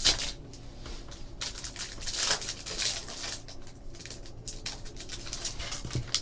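A trading-card pack being opened and its cards handled: irregular crinkling and rustling of the wrapper with quick flicks and clicks of cards.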